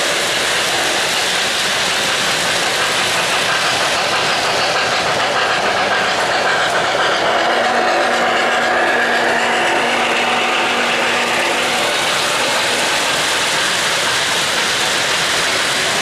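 O-gauge model trains rolling past close by on three-rail track, a steady clatter of wheels and motors. A faint steady hum joins in a little past the middle and fades out a few seconds later.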